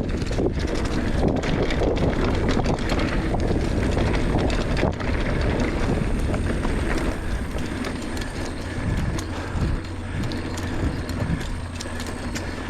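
Mountain bike riding a dirt trail: tyres rolling over dirt and roots, with a steady rumble and frequent rattles and knocks from the bike over rough ground.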